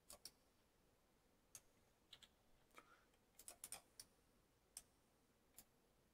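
Faint, irregular clicking of a computer keyboard and mouse, about a dozen separate taps, several close together in the middle.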